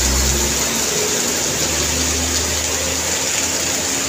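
Heavy rain pouring steadily, with a truck engine running beneath it.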